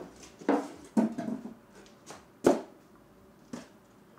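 Styrofoam packing inserts being handled in a cardboard box: about six short rubs and knocks, the loudest a sharp knock a little past halfway.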